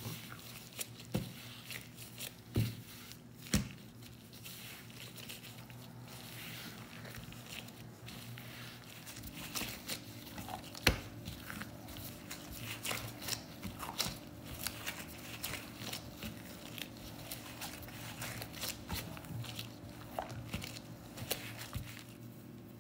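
Bread dough being kneaded by hand in disposable plastic gloves on a silicone baking mat: crinkling of the gloves and soft squishes of the dough, broken by irregular sharp clicks and a few louder slaps.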